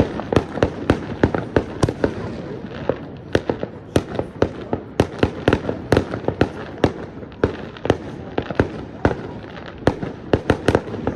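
Fireworks going off: a rapid, irregular string of sharp cracks and bangs, several a second, over a steady background of more distant crackle.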